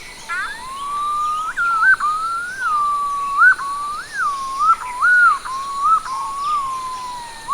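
Sri Lanka green pigeon calling: one long, mellow whistled song that warbles up and down, with repeated quick upward flicks and loops in pitch. A couple of short rising notes lead into it.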